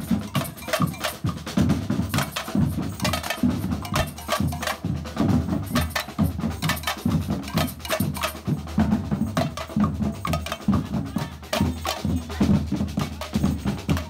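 Street percussion band playing a fast, driving rhythm together on large strapped bass drums and snare drums struck with sticks.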